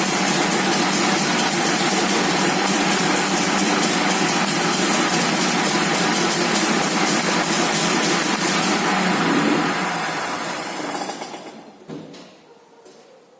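DKW-Vemag Vemaguet's freshly refitted three-cylinder two-stroke engine running steadily, fed by the premixed fuel in its carburettor bowl. About ten seconds in it is shut off and its sound dies away over a couple of seconds.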